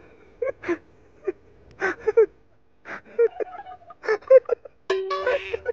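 Short, indistinct vocal sounds from people: brief exclamations and breathy sounds with gaps between them. A steady tone joins them for about the last second.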